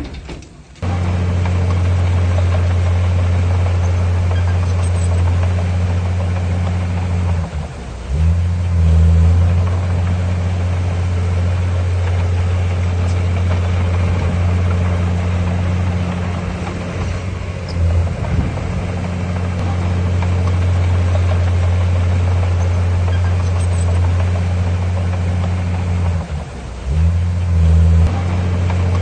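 Heavy diesel engine of earthmoving machinery running steadily under load, with a low drone. The engine briefly drops and then surges louder twice, about eight seconds in and again near the end, as the throttle changes.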